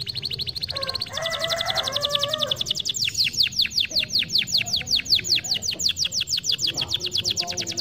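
Yellow domestic canary singing a continuous rolling song made of rapid trills. It switches from one fast trill to another about a second in, then to a run of quick down-slurred notes at about eight a second.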